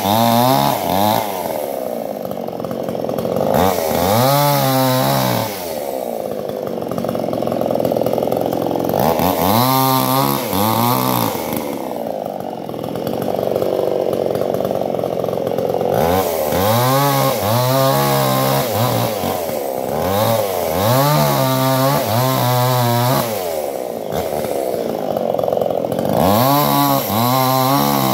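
Chainsaw cutting guava wood. The engine revs up and down again and again between stretches of steady high-speed running in the cut.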